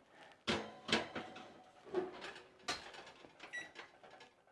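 Oven door opened and shut as a loaf pan goes in: a few sharp knocks and clatters, then a short high electronic beep near the end.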